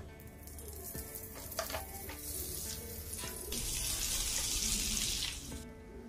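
Butter sizzling in a hot frying pan, the hiss swelling and growing loudest as a sandwich is laid into the foaming butter, then dropping away shortly before the end.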